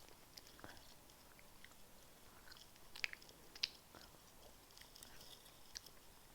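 A person chewing a chewy sour apple sweet: faint wet mouth clicks and smacks, with two sharper clicks about three seconds in.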